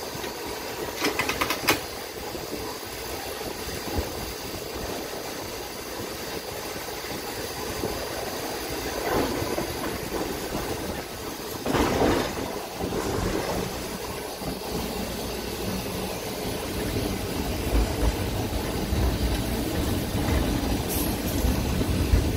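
Inside a TECO Line streetcar running along its track: the steady rumble of wheels and running gear, with a few sharp clicks about a second in and a louder rushing surge about twelve seconds in. A low rumble builds over the last few seconds as the car comes into a stop.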